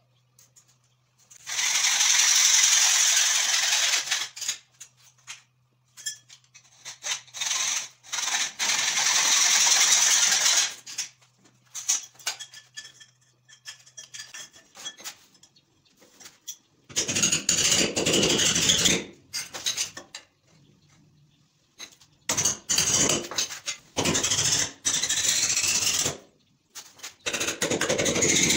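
Hacksaw cutting grey PVC pipe: two long stretches of rasping sawing, followed by several shorter, duller bursts of noise.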